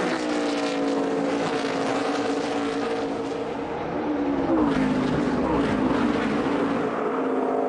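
NASCAR stock cars' V8 engines running at racing speed on the last lap, a steady engine note whose pitch drops around four seconds in and then rises and levels off again.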